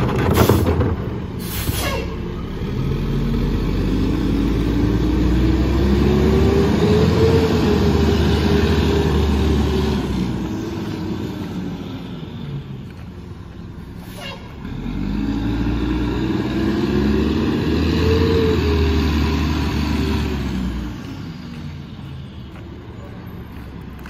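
Diesel engine of a Mack LE rear-loader garbage truck pulling away, its pitch rising and falling twice over several seconds each time. Two sharp clanks at the very start come from the emptied cart being set down.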